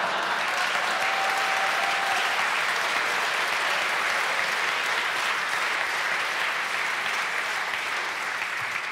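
Studio audience applauding, a dense, steady clapping from many hands.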